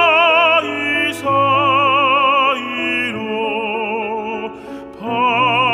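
A tenor sings a Korean art song in operatic style with strong vibrato, holding long notes over an instrumental accompaniment. He takes a brief pause just before the end, then resumes.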